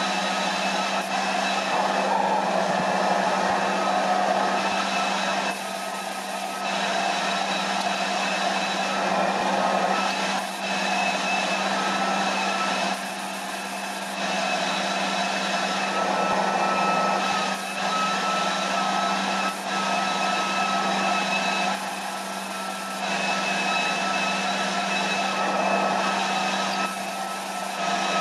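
A small electric motor running steadily with a whine over a broad hiss; the hiss drops back briefly every few seconds.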